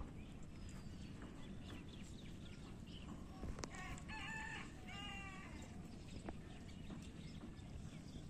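A rooster crowing once, faintly, about halfway through, over low steady background noise.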